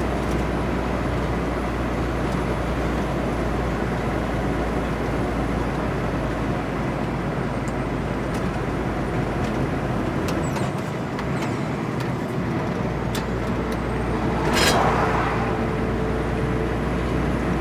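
Steady engine and tyre noise heard inside a moving car's cabin, the low rumble easing for a couple of seconds around the middle. Near the end there is one short, loud knock or bump.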